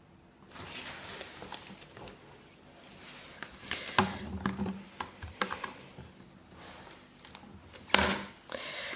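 Hands working a Stamparatus stamp-positioning platform, with a clear poppy stamp and magnets being set in place on its plate: small irregular clicks, taps and rustles. There is a sharper knock about four seconds in and a louder clack near the end.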